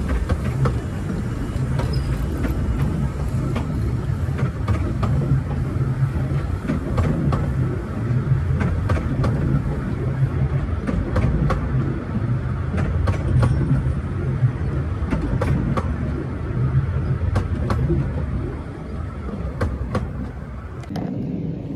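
The passenger coaches of a 15-inch-gauge miniature railway train rolling past, a steady low rumble with frequent sharp clicks from the wheels on the track. It eases off near the end as the last coach goes by.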